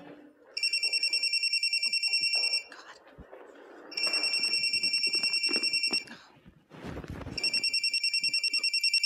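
Telephone ringing with a fast electronic trill: three rings of about two seconds each. Between the rings there is faint rustling as a handbag is searched for the phone.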